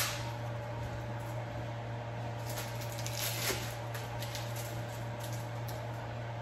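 Steady low kitchen hum with a sharp click at the start, then a few faint rustles of plastic cheese-slice wrappers being peeled about halfway through.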